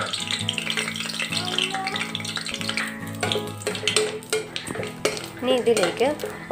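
Whole spices sizzling in hot ghee in a steel pot, stirred with a metal spoon that clicks against the pot. Background music with a voice comes up near the end.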